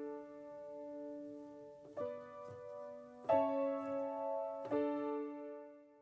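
Background piano music: slow, sustained chords, a new one struck every second and a half or so, the last dying away near the end.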